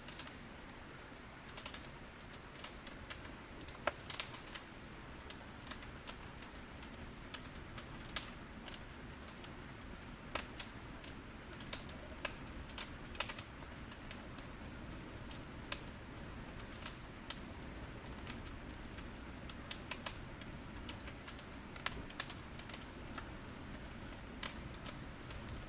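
Burning firewood crackling: irregular sharp pops and snaps, several a second at times, over a steady low hiss of the fire.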